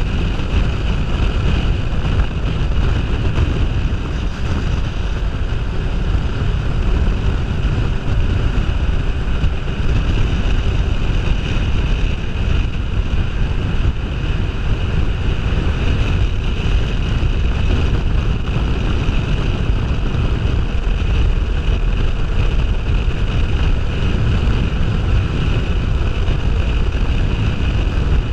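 Steady wind rush buffeting a helmet-mounted action camera's microphone at riding speed, over the continuous drone of a Kawasaki Ninja 500R's parallel-twin engine cruising.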